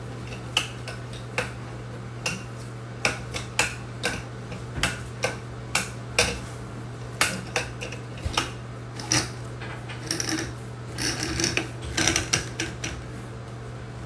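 Metal bathtub spout clicking and clinking as it is twisted by hand onto its pipe and snugged against the wall. The clicks come irregularly, one or two a second, and crowd together into a short run of clinking and rubbing near the end. A steady low hum runs underneath.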